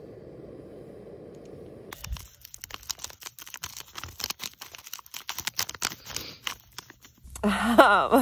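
Crinkling and rustling of a paper instant-coffee sachet being handled and shaken out over a pot of hot water: a rapid run of small crackles that starts about two seconds in. A woman's voice comes in near the end.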